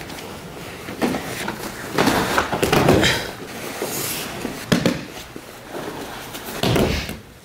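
Judo throws and falls on padded mats: several thuds of bodies hitting the mat, with the rustle and scuff of heavy judo gi cloth and bare feet between them.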